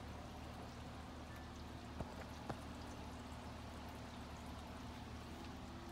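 Steady rain falling, an even hiss, with two sharp taps about two seconds in, half a second apart.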